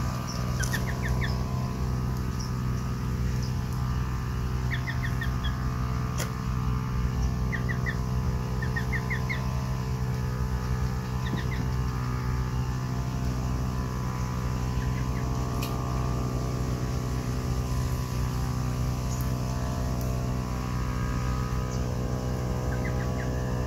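A motor running steadily with an even, unchanging hum, while small birds chirp in short runs of three or four quick notes every few seconds.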